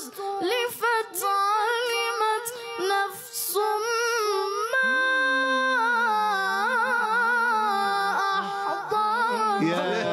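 A boy reciting the Quran in the melodic tajweed style: a high child's voice, unaccompanied, holding long ornamented notes that waver up and down.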